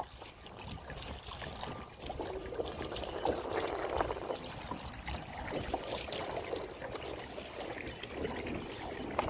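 Water splashing and trickling around a kayak as it is paddled, with a low rumble underneath.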